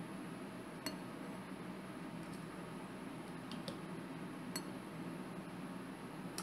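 A plastic ladle clinking lightly against a glass mixing bowl a few times as aloe vera hand gel is scooped out, over a steady background hum.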